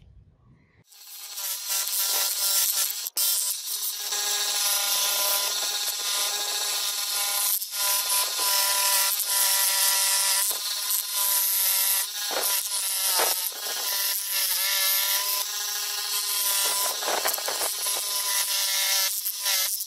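Scroll saw blade cutting through a brass plate: a steady sawing noise with a whining pitch over it, starting about a second in and breaking off briefly a few times.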